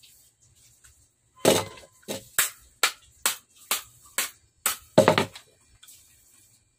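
A run of about ten sharp metallic knocks, roughly two a second, as a hand tool (the red-handled pliers) is struck against the bicycle seat's metal frame; the first and last knocks are the heaviest.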